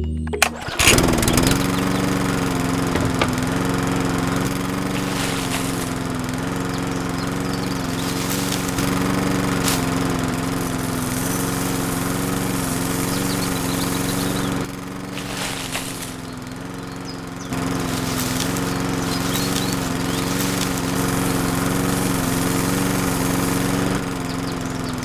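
A small motor starts up and runs steadily, its pitch rising briefly as it comes up to speed. It drops in level for about three seconds past the middle, then comes back.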